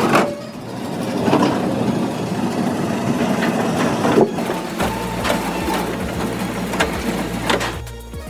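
Mobile debarking machine working logs: a dense grinding and crushing with several sharp knocks, and a steady low engine hum that joins about five seconds in.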